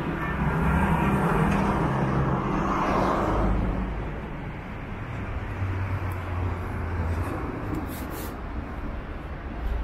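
A motor vehicle's engine runs close by amid street noise. It is loudest over the first four seconds and eases off after.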